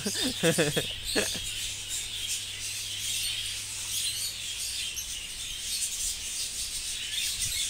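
Many budgerigars chattering and chirping together in a breeding aviary: a steady, busy twitter of many small calls.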